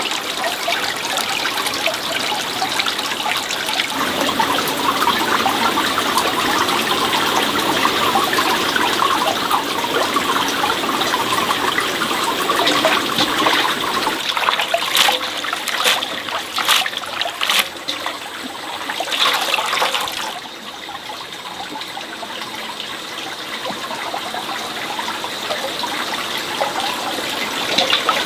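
Water running and splashing steadily, with a few sharp knocks a little past halfway; the flow grows quieter about two-thirds of the way through.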